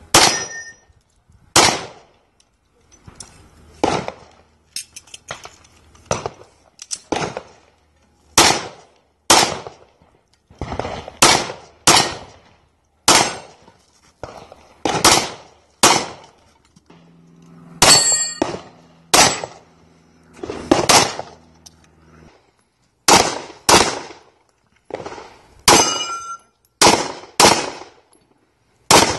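Pistol shots fired in strings at steel plate targets, about one shot a second, with the clang of steel plates ringing when hit.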